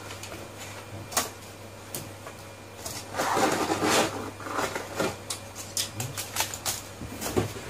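The detached keyboard and a plastic cover panel of an Acer Aspire 4710 laptop being picked up and shuffled about: scattered plastic clicks and knocks, with a louder stretch of scraping and rattling about three seconds in.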